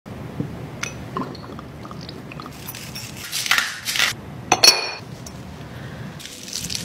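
Food-prep handling sounds around a small ceramic pot. There are light knocks as a halved garlic bulb is set into it, then two short rasping noises, then a single sharp ringing clink of ceramic about four and a half seconds in.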